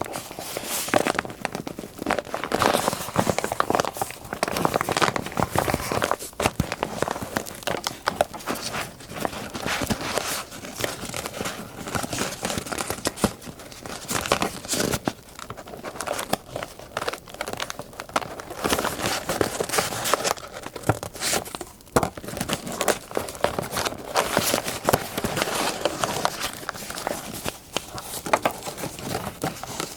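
Paper crinkling and rustling as scrapbook papers are handled and torn, over the crackling of a campfire, a dense run of small irregular clicks.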